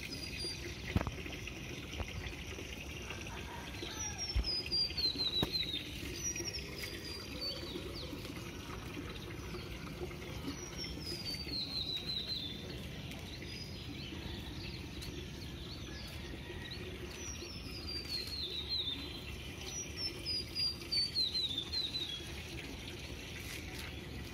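A songbird singing short phrases of quick notes that fall in pitch, repeated several times a few seconds apart, over a steady outdoor hiss.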